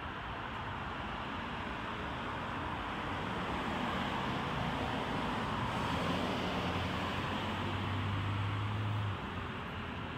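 Vehicle noise outdoors: a steady rushing sound that swells toward the middle, with a low engine hum coming in partway through and cutting off about nine seconds in.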